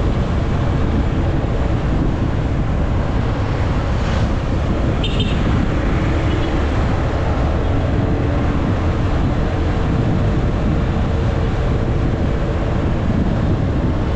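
Motorcycle riding at road speed: steady wind rush on the action camera's microphone over the engine's low hum. A short high-pitched sound comes about five seconds in.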